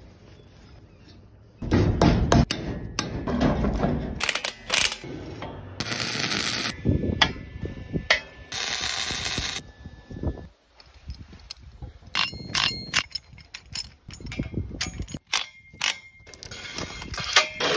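Metal fabrication sounds cut one after another: steel clanks and ringing knocks, two short bursts of steady hissing noise about a second each, then a cordless impact wrench driving a bolt near the end.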